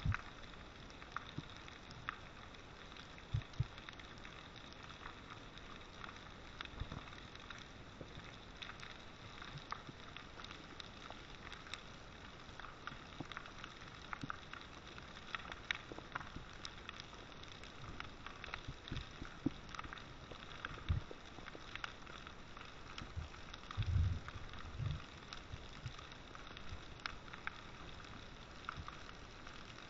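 Underwater reef ambience: a steady faint crackle of fine clicks over a hiss, with a few short low thumps, the loudest about three-quarters of the way through.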